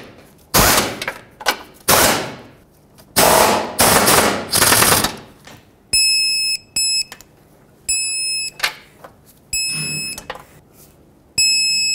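A handheld pneumatic tool runs in four short bursts, spinning the engine mount nuts and bolts down snug. From about halfway, a digital torque wrench gives five high beeps, signalling that each fastener has reached its set torque of 38 foot-pounds.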